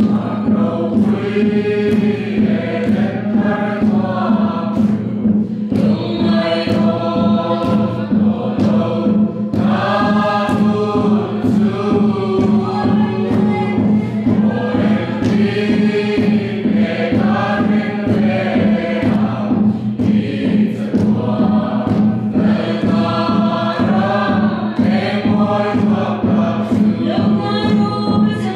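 Congregation singing a Mizo hymn together in long sustained phrases in the Lengkhawm style, led by a khuang drum beaten in a steady rhythm.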